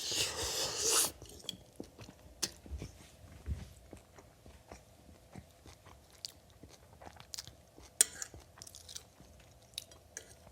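A person eating ramen noodles close to the microphone: a loud slurp in the first second, then quiet chewing with scattered small clicks and crunches.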